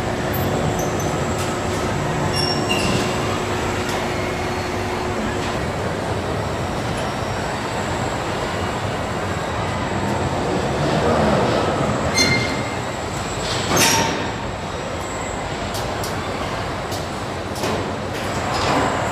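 Car body-shop assembly line with KUKA industrial robot arms working, a steady mechanical din. A steady hum stops about a third of the way in, and a few sharp knocks come around the middle and near the end.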